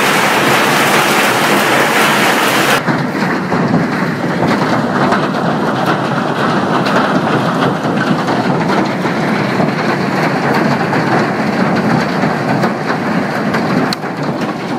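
Heavy hail pelting down on the ground and nearby surfaces: a dense, loud roar with many individual hailstone strikes ticking through it. About three seconds in, the roar turns abruptly duller.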